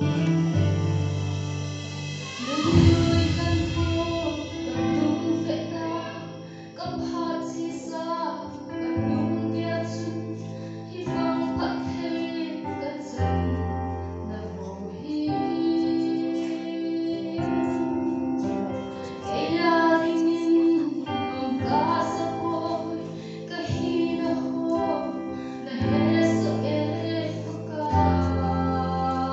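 A young female singer performing a solo through a microphone, her voice in sung phrases over steady instrumental accompaniment.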